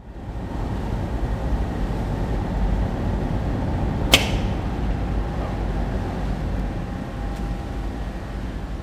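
Strong wind buffeting the microphone, with one sharp pop about four seconds in: a pneumatic line-throwing gun on a ferry's stern firing a heaving line toward the quay.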